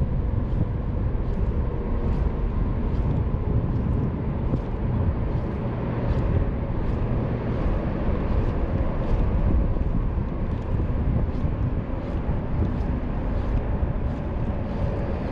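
Wind rumbling on the microphone of an open boat, with a faint steady hum under it and light ticks about twice a second.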